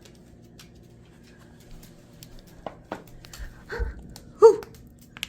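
Congo African grey parrot picking and chewing at a rug with its beak, faint scattered clicks and a few sharper ticks. About four seconds in come two short pitched vocal sounds, the second the loudest.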